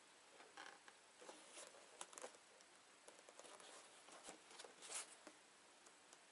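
Faint handling noise of hands turning a leather work boot: soft rustles of leather and laces with a few light ticks, the clearest about five seconds in, over a quiet room.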